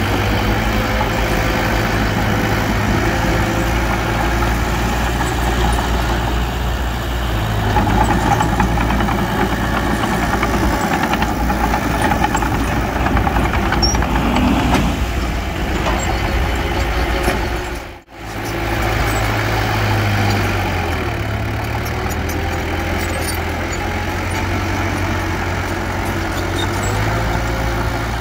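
Bulldozer's diesel engine working steadily under load, its pitch shifting a few times as it eases off and picks up again, with a brief sudden drop-out of the sound about two-thirds of the way through.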